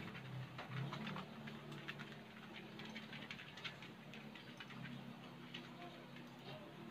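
Faint eating sounds: scattered, irregular small clicks of chewing crispy fried chicken and sipping from a glass.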